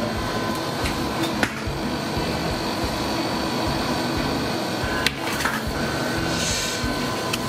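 Steady background hum of kitchen equipment, with two sharp knocks, one about a second and a half in and one about five seconds in.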